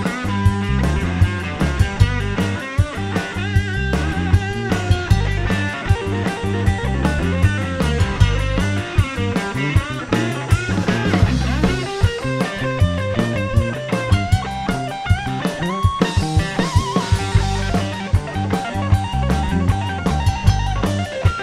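Live full rock band playing an instrumental break between sung verses: electric guitar lead over bass and a drum kit keeping a steady beat.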